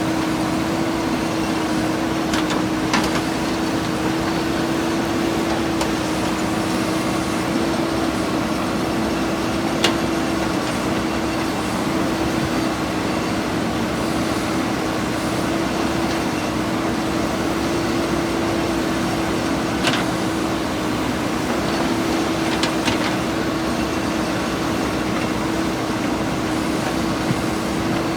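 A steady motor hum holding one pitch throughout, with a few faint clicks here and there.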